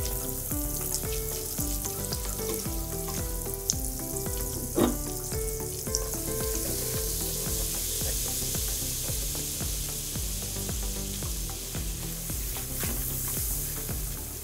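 Melted butter sizzling in a pan while a wire whisk stirs flour into it to start a roux, with a few light clicks of the whisk against the pan. Light background music with a steady beat runs underneath.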